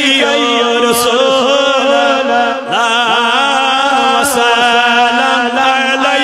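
A man singing a Kashmiri naat solo, unaccompanied, in long held notes with melismatic bends and ornaments.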